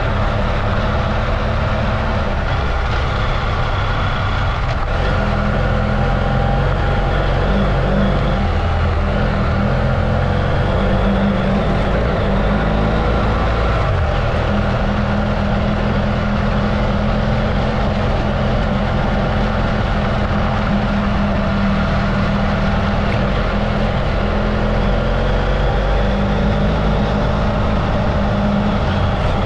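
Adventure motorcycle engine running steadily while riding a dirt road, with wind noise on the microphone. The engine note dips briefly and picks up again a few times as the throttle eases and opens.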